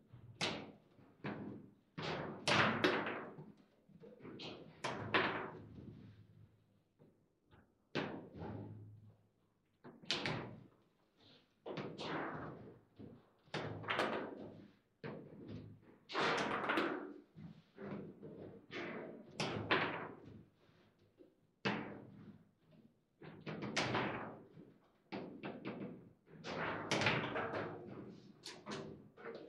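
Foosball table in fast play: the hard ball striking the plastic figures and the table's walls as the players slide and swing the rods, giving a steady run of irregular sharp knocks and thuds.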